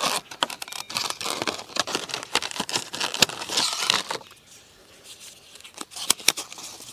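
Stiff clear-plastic blister pack crinkling and crackling as it is pulled open and the GPS module and cable are taken out, a dense run of clicks. About four seconds in it goes much quieter, leaving a few sharp clicks and the rustle of a folded paper booklet being opened.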